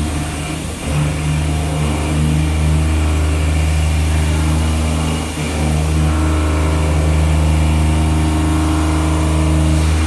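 CNC milling machine running during a pocket-milling operation: a steady low machine hum with a brief dip about five seconds in.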